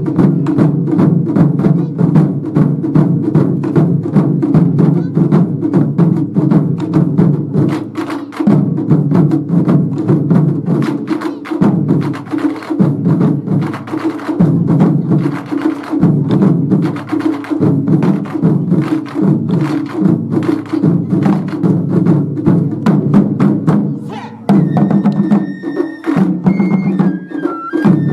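Wadaiko ensemble of Japanese taiko drums playing fast, dense drumming. About 24 seconds in the drumming dips briefly, and a high steady tone joins it near the end.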